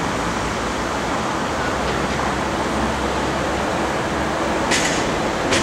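Steady, loud rushing background noise, with two short sharp sounds near the end.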